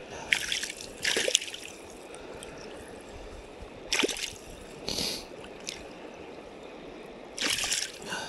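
Shallow stream water running steadily, with a few short splashes and sloshes in a landing net held in the water as a hand works at a caught fish inside it.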